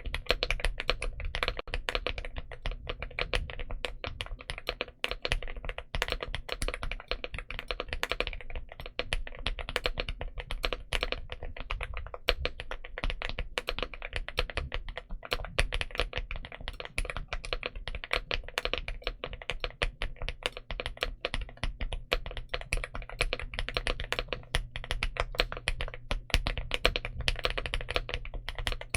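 Continuous, fast typing on a mechanical keyboard, a Leobog Hi75 v3 fitted with unlubed linear Frankenswitches (Gateron Smoothie housings and two-stage springs, Gateron Yellow stems), giving a deep, creamy clack that is neither silent nor loud.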